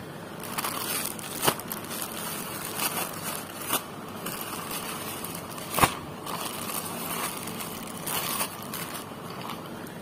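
Clear plastic garment bag crinkling as it is handled, with a few sharper crackles, the loudest about six seconds in.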